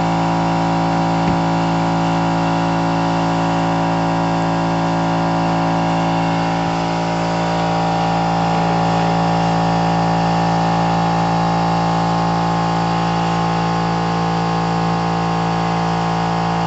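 A loud, steady drone made of several unchanging held tones, like a machine hum, with a slight dip about seven seconds in.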